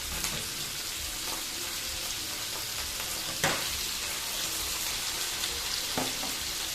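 Cubed potatoes frying in hot oil with dried chillies and panch phoron: a steady sizzle, broken by two sharp knocks, the louder about three and a half seconds in and another near six seconds.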